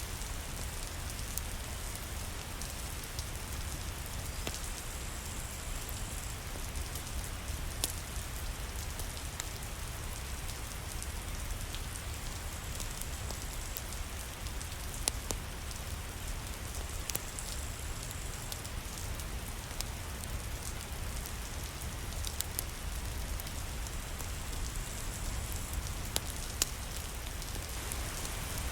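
Steady rain, with a deep low rumble underneath and scattered sharp pops and clicks.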